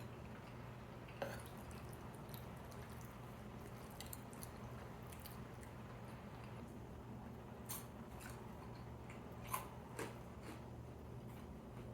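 Close-miked eating sounds: quiet chewing with a handful of sharp, wet clicks, over a steady low hum.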